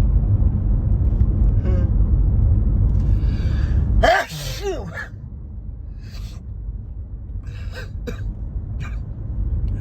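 A man with a heavy head cold sneezes once, hard, about four seconds in, after a breathy build-up, then sniffs several times. A steady low car-cabin rumble runs under the first part and drops away at the sneeze.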